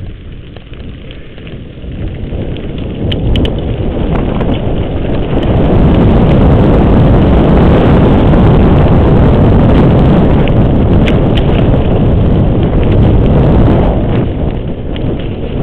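Wind rush on the microphone of a camera carried on a moving mountain bike, mixed with tyre noise on a dirt trail and the odd knock and rattle from the bike. It builds from about two seconds in as the bike gathers speed, is loudest in the middle, and eases near the end.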